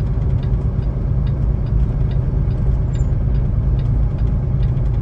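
Semi-truck engine and drivetrain running steadily at low speed, heard from inside the cab as a heavy low rumble. Over it, a light click repeats about twice a second, which fits the snow chains on the drive tires.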